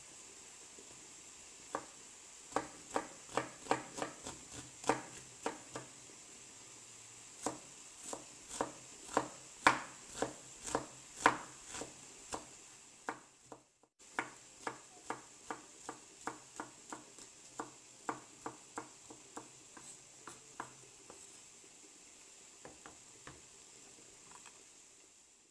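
Chef's knife dicing an onion on a bamboo cutting board: a steady run of sharp knife strikes on the wood, about two or three a second, with a short break about halfway and the strikes thinning out near the end.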